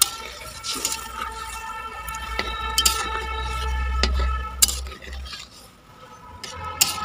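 Water being poured into a metal karahi of simmering fish curry and stirred in with a spatula, which knocks sharply against the pan several times. A steady high whine runs underneath.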